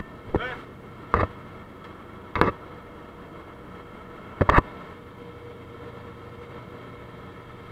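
Muffled steady cabin noise of a jump aircraft, broken by several short sharp knocks; the loudest is a double knock about halfway through.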